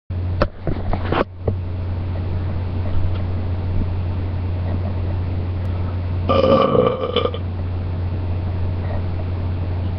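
A person belching once, a pitched belch lasting about a second, starting a little after six seconds in. A steady low hum runs underneath, with a few clicks and knocks in the first second or so.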